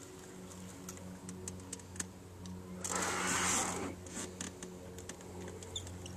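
Spinning reel being cranked as a lure is retrieved, giving light, irregular ticking over a steady low hum. A loud rush of noise about a second long comes around halfway through.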